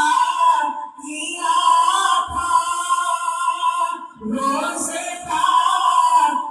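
A singing voice in long, held melodic phrases with little or no accompaniment, breaking off briefly about a second in and again about four seconds in.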